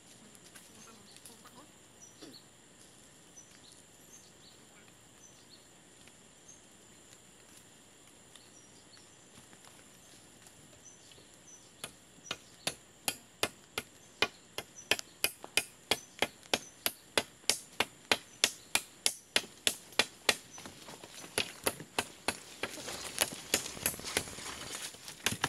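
Faint forest background with a steady high insect hum, then, about halfway through, a blade chopping into a wooden pole in quick regular strokes, about two to three a second. Rustling grows beneath the chops near the end.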